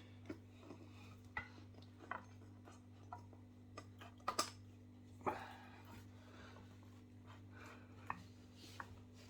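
Scattered light clicks and knocks of a new scooter tyre and wheel being handled, two a little louder about four and five seconds in, over a steady low hum.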